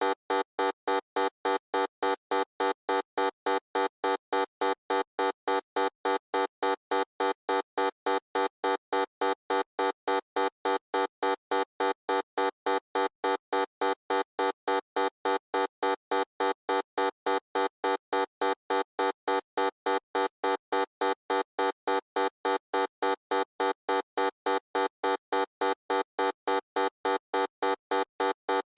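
Electronic buzzer sounding in short, harsh beeps, switched on and off in an even rhythm of about three a second and never varying.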